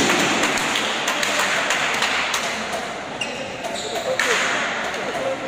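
Many voices of a crowd talking at once in an echoing sports hall, with scattered knocks and clatter.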